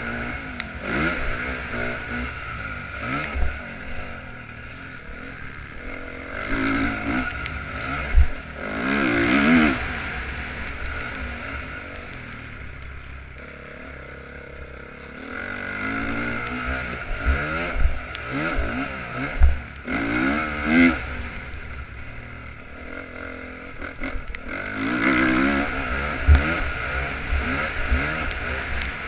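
2015 Honda CRF450R's single-cylinder four-stroke engine on a motocross track, heard from a helmet-mounted camera. The revs climb and fall in repeated bursts of throttle, with quieter stretches between them and low thuds underneath.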